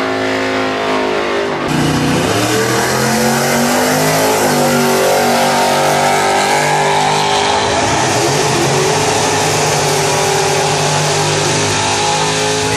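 Drag-racing car engines running loudly and revving, their pitch rising and falling. There is an abrupt change in the sound about two seconds in.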